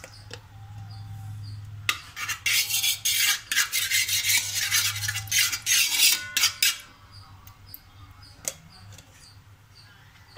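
Metal spoon scraping and clinking against the bottom of a large aluminium pot, working lumps of ghee around as they melt, in a quick run of strokes from about two seconds in to near seven seconds. A steady low hum sits underneath.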